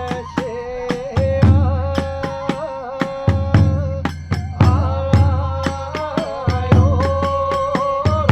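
Kagura hayashi ensemble playing. A bamboo flute holds a wavering melody that climbs higher about halfway through. Under it, a large drum strikes heavy, ringing beats about once a second, and hand cymbals clash sharply.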